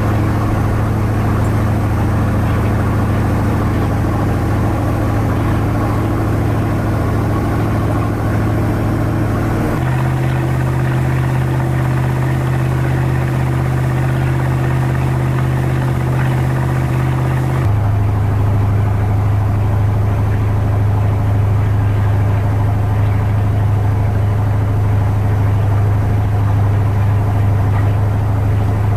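Wooden Lyman cruiser's engine running steadily under way, a loud low drone heard from inside the cabin. Its pitch jumps abruptly twice, about ten and about eighteen seconds in.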